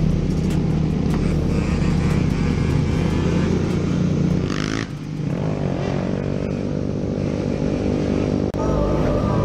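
Motorcycle engines running during a group ride, heard from on board the rider's own bike. The engine note dips briefly about halfway through, then rises as the bike revs up and accelerates.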